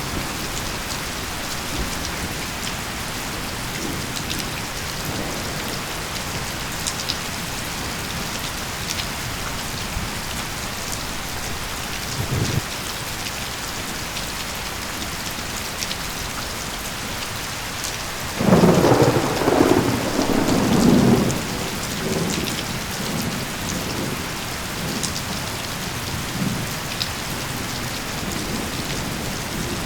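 Steady rain falling, with a brief low thump about twelve seconds in and a louder rumble of thunder about two-thirds of the way through that lasts some three seconds and then dies away.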